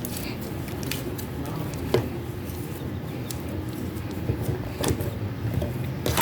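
Slime being stretched and squeezed in the hands, with a few short sharp clicks, the strongest about two seconds in and at the end, over a steady low background rumble.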